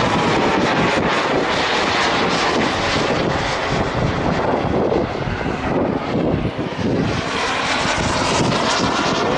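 Radio-controlled model jet aircraft flying past, a loud steady turbine rush with a faint whine whose pitch bends as it passes.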